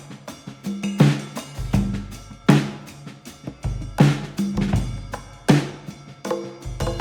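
Music with a steady drum-kit beat: a strong kick-and-snare hit about every second and a half, with lighter drum hits and pitched instruments in between.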